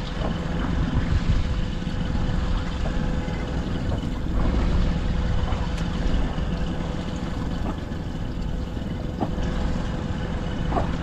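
Wind rumbling on the microphone over the steady drone of a boat engine, with a faint constant hum.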